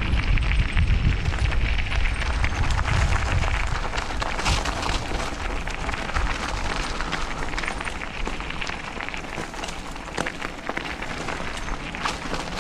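A mountain bike being ridden along a dirt trail. Wind buffets the microphone, heaviest over the first three or four seconds, above steady tyre-on-trail noise with scattered clicks and rattles from the bike.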